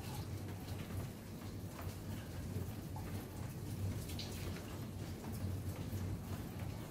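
Steady rain with a low, even rumble, and a few faint taps of a stylus on a tablet screen.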